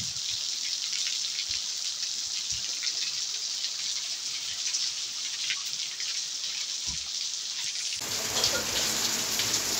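Heavy tropical downpour: a steady hiss of rain pouring onto a waterlogged street. About eight seconds in the rain sound changes abruptly to a fuller, louder one.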